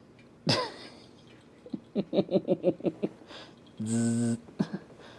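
Short non-speech vocal sounds: a brief falling call, then a quick run of about eight short pitched pulses, then a steady low buzz lasting about half a second.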